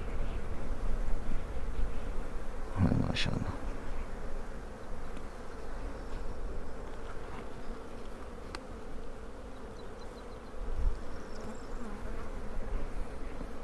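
Honeybees buzzing steadily over an open beehive during a frame inspection, with a single knock about three seconds in and a softer thump later.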